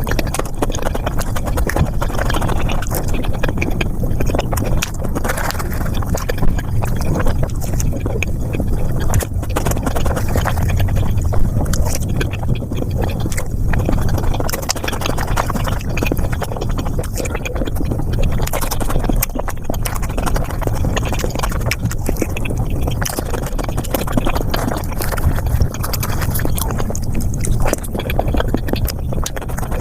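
Sped-up eating sounds: fast, dense chewing and wet mouth smacking on flatbread and curry, a continuous crackle of tiny clicks.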